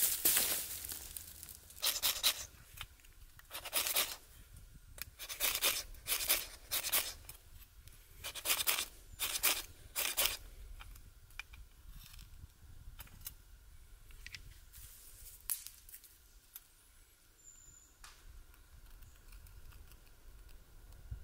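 About ten sharp scraping strokes, roughly one a second, as tinder and wood shavings are worked in a steel bowl; after about ten seconds they stop, leaving only a few light ticks.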